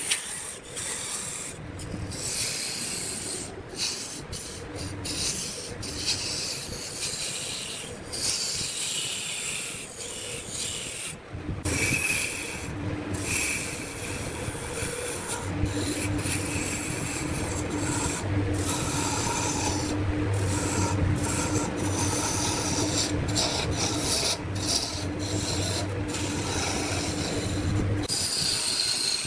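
A wood lathe running while a turning tool cuts and scrapes the spinning wood, giving a steady rasping hiss broken by several brief dropouts. From about a third of the way in, a steady low motor hum from the lathe runs underneath.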